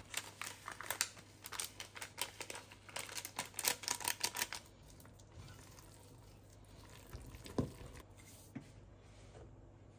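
A plastic snack-style packet crinkling as candied orange bits are shaken out of it into a stainless-steel pot of carrot cake batter, giving a rapid run of crackly ticks. After about five seconds it turns much quieter, with only faint soft sounds of the thick batter being stirred with a silicone spatula.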